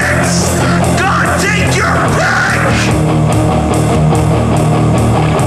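Loud, heavy rock music with distorted electric guitars over a steady drum beat, an instrumental passage with no sung lyrics.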